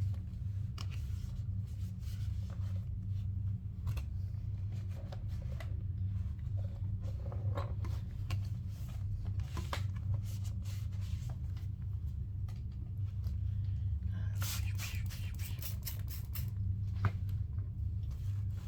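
Cloth rubbing and wiping over the plastic body of a Numatic Henry vacuum cleaner, with scattered light knocks of handling and a quick run of bright scraping strokes about three-quarters of the way in, over a steady low hum.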